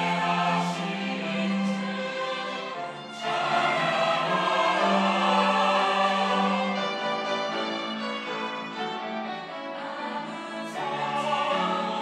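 Church choir singing a praise anthem in held, sustained notes. The choir comes in louder about three seconds in, eases off in the middle, and swells again near the end.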